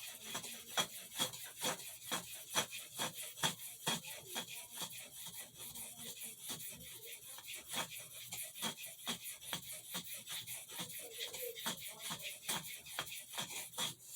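Steel knife blade stroked rapidly back and forth on an Arkansas sharpening stone, a steady run of short rasping strokes about three a second, working up a burr along the edge of a Boker Congress pocketknife's pen blade.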